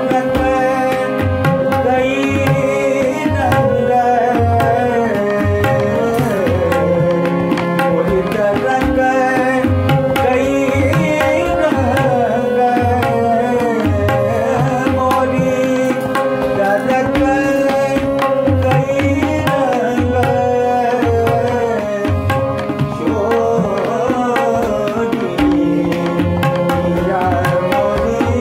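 A male voice singing a classical Kumauni Holi song in raag Jangla Kafi, to a harmonium's held chords and a tabla's running strokes.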